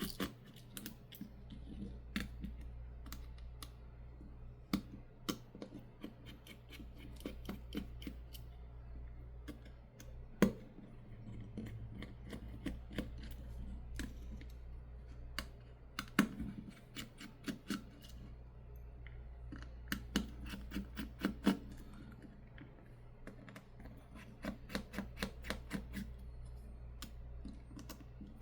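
Small sharp clicks and ticks of a precision screwdriver turning out the tiny screws inside a smartphone, often in quick runs of several clicks a second. A steady low hum lies underneath.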